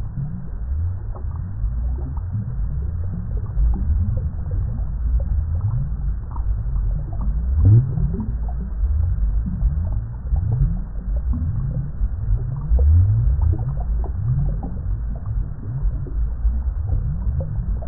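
Water bubbling without a break: a dense run of low, deep bubbles, each a short blip rising in pitch.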